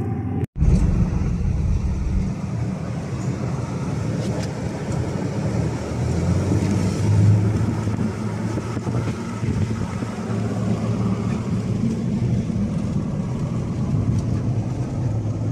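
Inside the cab of a 2013 Nissan Frontier pickup on the move: steady engine hum under tyre and road noise.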